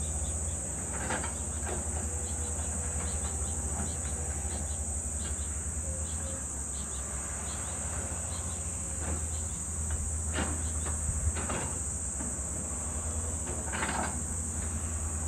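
Steady high-pitched drone of insects over a low, steady engine rumble from a distant excavator and backhoe loader. A few short knocks stand out: about a second in, twice around ten to eleven seconds in, and near the end.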